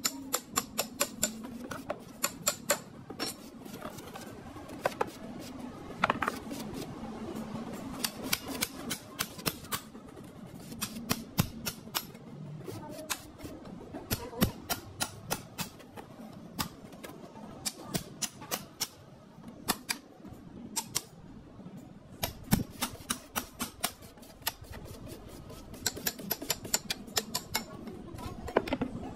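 Quick runs of light hammer taps on a chisel against the plastic case and lead cell connectors of a lead acid battery, as the case is cut open and the cells are worked apart, with short pauses between the runs.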